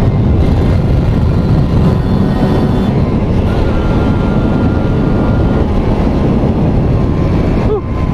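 Kawasaki Ninja RR's 150 cc two-stroke single-cylinder engine, fitted with a Mikuni VM28 carburettor, running loud and steady, with a brief dip and swoop in pitch near the end.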